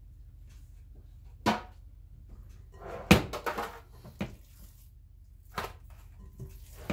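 Hands working raw meatloaf mixture in a glass mixing bowl, with a few sharp knocks and clatters of kitchen things being handled. The loudest knock comes about three seconds in, followed by a brief rustle.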